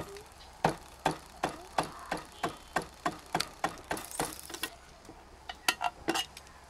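A large serrated knife striking and cutting into the lid of a steel food can to open it without a can opener. It makes a quick run of sharp metal clicks, about three a second, then a short pause and a few more.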